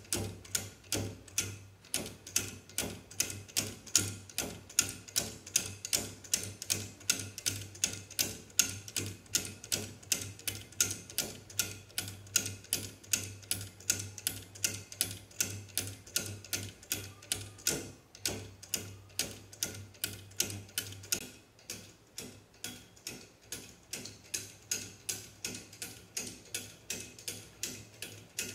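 Homemade wooden pendulum escapement, driven by a tape-measure spring motor, ticking in a fast, steady rhythm as the pendulum swings. It runs at this fast pace because the tape-measure spring pushes it with too much force.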